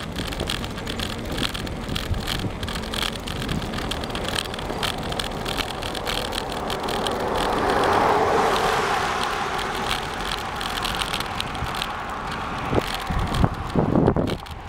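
A car overtaking a bicycle from behind, its tyre and engine noise swelling to a peak about eight seconds in and then fading, over steady wind on the microphone and the bicycle's road rumble. A few knocks near the end.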